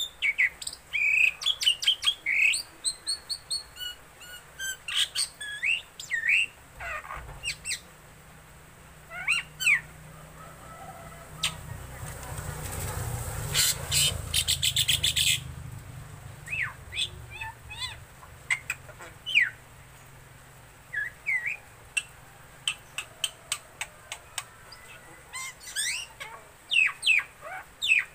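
Black-winged myna (jalak putih) calling in bursts of short, sharp whistles and chirps, many of them sweeping down in pitch, with brief pauses between bursts. About eleven to fifteen seconds in, a motorcycle passing in the street swells up and fades under the calls.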